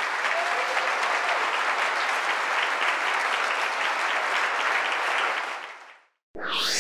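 Audience applauding at the end of a talk, dense clapping that fades out near the end.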